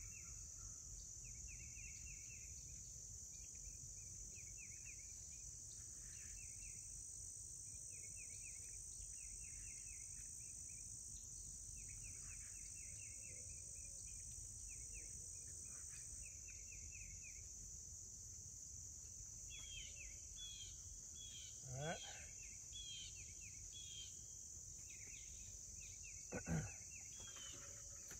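A faint, steady, high-pitched insect chorus of crickets or katydids, with rows of short repeated chirps over it. Two brief knocks stand out about three-quarters of the way through and near the end.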